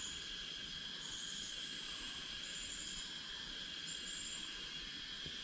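Insect chorus: several steady high buzzing tones held at once, with short, higher trills repeating about once a second.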